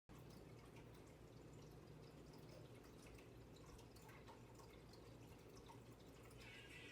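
Near silence: a faint low hum with scattered faint ticks.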